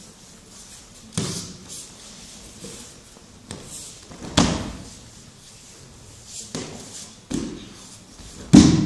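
Aikido breakfalls on tatami mats as partners are thrown: several sharp slaps and thuds a few seconds apart, the loudest near the end.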